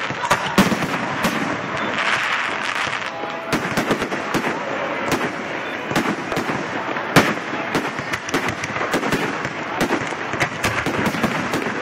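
Fireworks display: a dense, continuous string of bangs and crackling pops, one burst after another, with an especially loud bang about seven seconds in.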